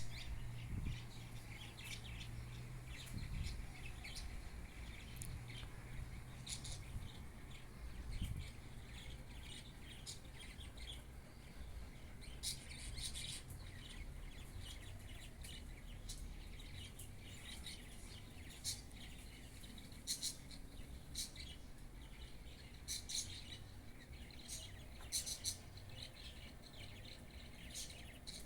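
Birds chirping: short, high calls at irregular intervals, over a low hum that fades after about eight seconds.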